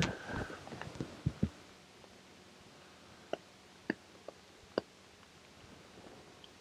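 Faint close handling noise: a cluster of soft knocks with a brief squeak at the start, then a few scattered sharp clicks.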